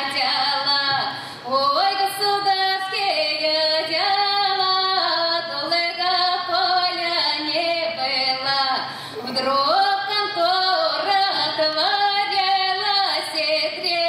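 A woman singing a Russian village folk song in full voice, with long held notes that slide between pitches. She pauses briefly for breath about a second in and again about nine seconds in.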